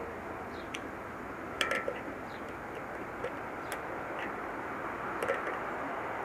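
A few light, scattered metallic clicks and taps, one with a brief ring, from hand tools being used to adjust the trike's out-of-line wheel parts, over a steady background hiss.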